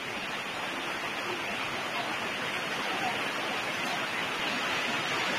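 A steady, even hiss that grows slightly louder toward the end.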